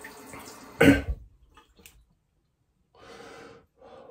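A man clears his throat and coughs, one loud cough about a second in, with softer breathing sounds around it and twice more near the end.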